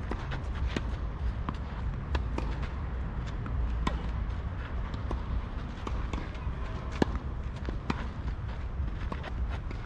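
Tennis rally on a clay court: sharp pops of rackets striking the ball and the ball bouncing, about one a second, the loudest about seven seconds in, over a steady low rumble.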